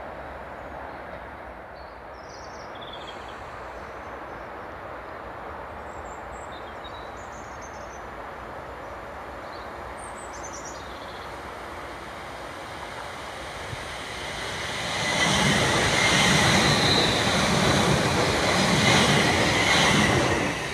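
A train approaching along the line and then passing close by, growing louder from about two-thirds of the way in, with a rhythmic clatter of its wheels over the track as it goes past; it falls away right at the end.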